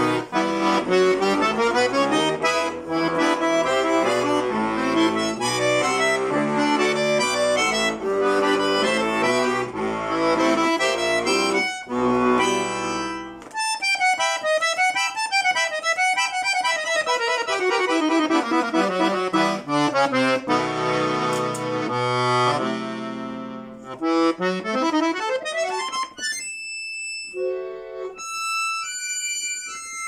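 Bayan (chromatic button accordion) playing a solo folk-song arrangement. Full chords over a bass line give way about halfway through to fast runs sweeping down and back up, then sparse high notes near the end.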